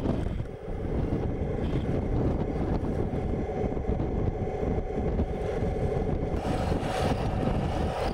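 Wind buffeting the microphone in gusts, with 1:16 scale Taigen RC tanks running underneath as a faint steady whine.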